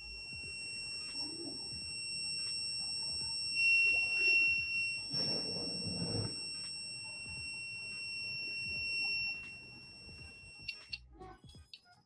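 Piezo buzzer of a homemade heat-triggered fire alarm sounding a steady, high-pitched tone, switched on because the bimetallic contact in a fluorescent-lamp starter bulb has closed in the heat of a gas flame. The tone cuts off suddenly about eleven seconds in.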